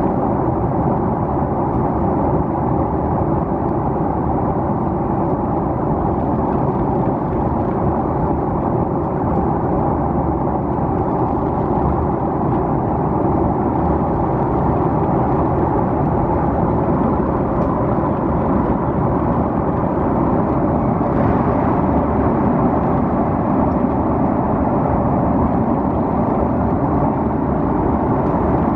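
Steady cabin noise inside an Airbus A330-300 airliner: the even rumble of its Rolls-Royce Trent 772B engines and airflow, growing slightly louder over the last several seconds.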